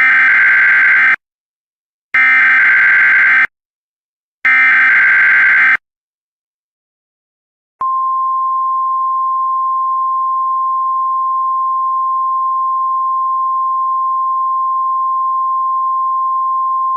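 Emergency Alert System mock alert: three short bursts of SAME header data tones, each about a second long and two seconds apart. After a short gap, a long single-pitch attention tone begins and holds steady for about ten seconds.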